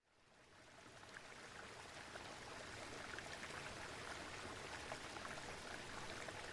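Steady rush of flowing water with small scattered splashes, fading in over the first two seconds.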